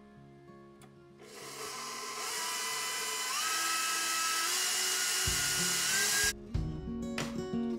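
KitchenAid stand mixer running with its wire whip beating cream: a motor whine over a hiss, the whine stepping up in pitch a few times as the speed goes up. It starts about a second in after a brief lull and cuts off near the end, where guitar music comes in.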